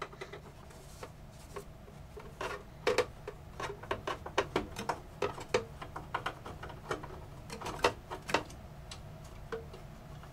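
Irregular small clicks and ticks of a screw being worked out of the plastic case of an AT&T UNIX PC 3B1 by hand and screwdriver, coming in clusters with short pauses between.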